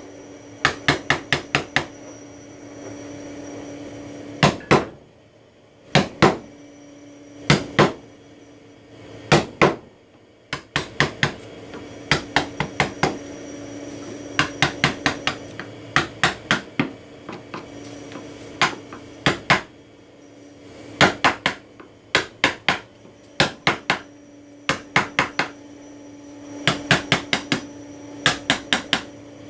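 Mallet striking a wood-carving chisel as it cuts into a wooden panel: sharp taps in quick runs of several strokes, with short pauses between runs, over a steady low hum.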